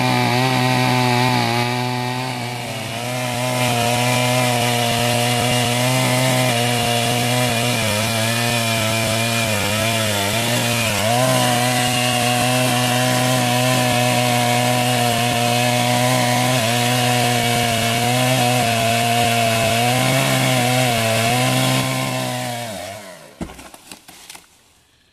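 A power tool's motor running steadily at high speed as it cuts into a wooden log, its pitch dipping now and then under load. It winds down and stops near the end.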